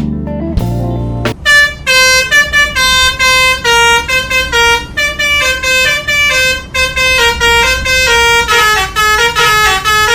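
Bus telolet horn of the basuri type playing a tune: a run of loud, many-toned horn notes stepping up and down in pitch, starting about a second and a half in and quickening near the end. Guitar music fades out just before it begins.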